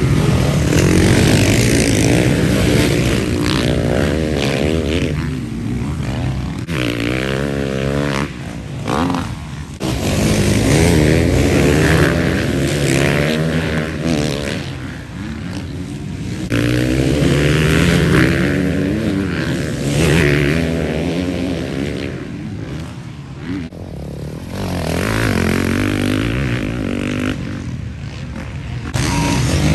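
Several motocross bikes racing past on a dirt track. Their engines rev hard and drop off again and again as the riders accelerate, shift and back off, one bike after another.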